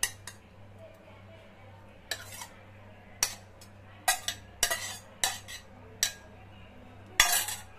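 A steel spoon scraping and clinking against a stainless steel plate as cooked greens are pushed off it: a string of about eight separate short scrapes and clinks, the loudest near the end.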